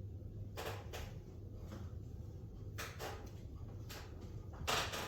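A squeegee swiping over wet window film on glass in a few short strokes, over a steady low hum.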